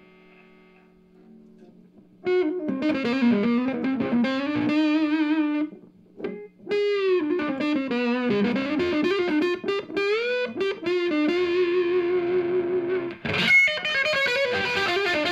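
Reville MV-X electric guitar with P90 pickups played through a Monoprice 15-watt tube amp with the gain at maximum. A faint held chord rings at first. About two seconds in, a loud distorted lead line starts, with string bends and vibrato, a brief pause around the middle, and then more bent notes.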